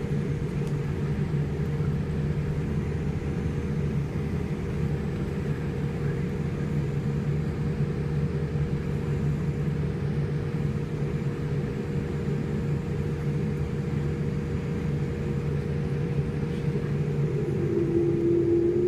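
Cabin noise inside a Boeing 787: a steady low hum from the Rolls-Royce Trent 1000 engines and airframe. Near the end a rising whine sets in and the sound grows louder as the engines start to spool up for takeoff.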